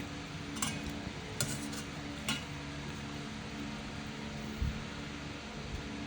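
Three light clinks of a utensil against a dish, about a second apart, over a steady low hum. Two soft low thumps come later.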